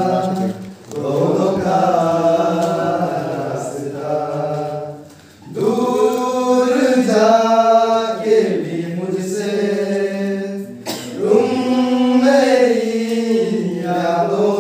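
A small mixed group of young men and a woman singing a song together unaccompanied, in long held notes, with brief breaks between phrases about five and eleven seconds in.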